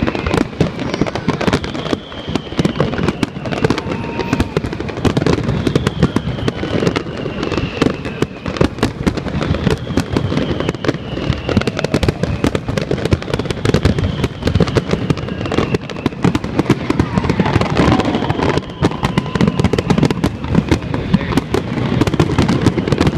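Fireworks display going off continuously: a dense run of bangs and crackling explosions, with whistles falling in pitch now and then.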